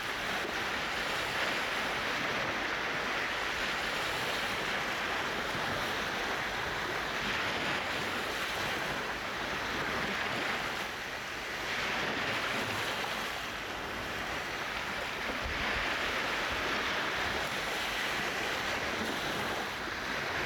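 Small ocean waves washing in and out on a sandy beach at the water's edge. The hiss of surf swells and eases gently every few seconds.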